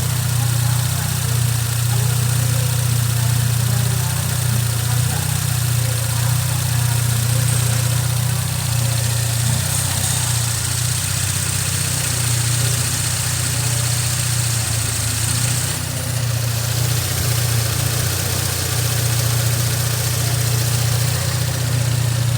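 Holden Commodore 3.6-litre V6 engine idling steadily, with an even note and no revving.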